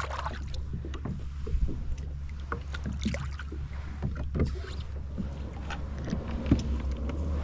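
Seawater lapping and splashing against the hull of a kayak, with scattered small knocks and clicks, over a steady low rumble.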